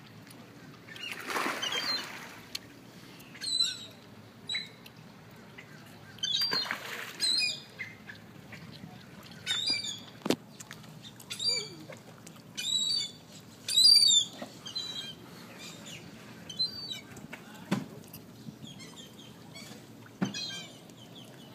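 Seabirds calling in short, high squawks, over and over at uneven intervals. Two longer rushes of noise come in the first seven seconds.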